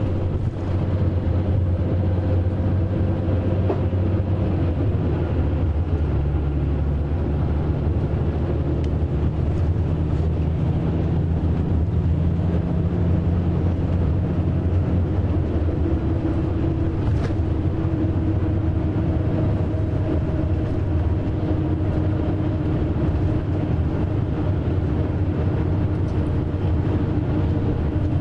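Cabin sound of a Marcopolo Paradiso 1800DD G6 double-decker coach on a Scania K420 chassis cruising on an expressway. The rear-mounted diesel engine keeps up a steady drone over road noise, its note drifting slowly in pitch as the speed changes.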